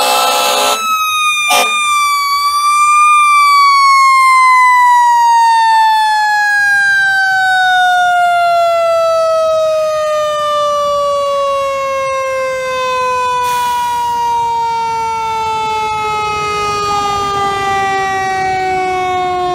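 Fire truck's mechanical siren winding down, one clear wail falling slowly and steadily in pitch as it coasts, with a brief rise about two to three seconds in. A louder, denser horn blast cuts off about a second in.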